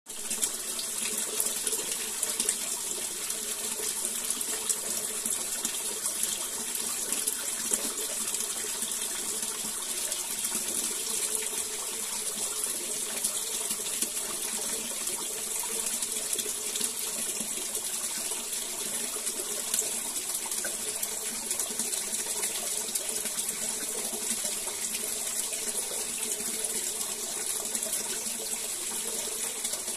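Oil vigil lamp's burning wick giving a steady hiss with fine, rapid crackling throughout.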